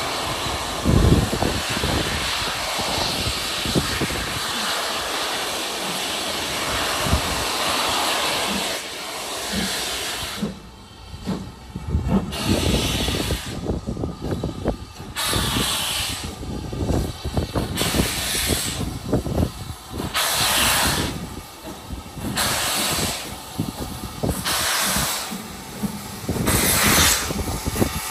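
Steam locomotive hissing steam steadily, then, from about halfway through, chuffing slowly as it gets its train moving, roughly one exhaust beat a second.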